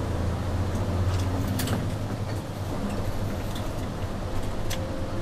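City route bus engine running as the bus drives along, heard from inside the cabin near the front: a steady low drone, with a couple of sharp clicks or rattles from the interior.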